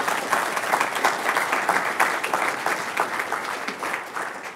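Audience applauding, a dense patter of many hands clapping that starts to fade near the end.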